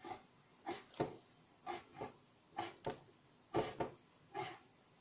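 Kitchen knife chopping rehydrated salted wakame seaweed on a wooden cutting board: short blade knocks on the wood about twice a second, often in quick pairs.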